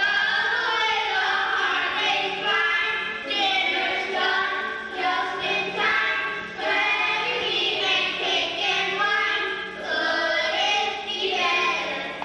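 A group of young children singing together in chorus, in short phrases.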